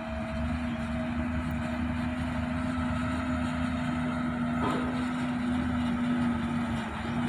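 Hino dump truck's diesel engine running at a steady pitch as it creeps toward the listener on a muddy dirt haul road, growing slightly louder as it nears.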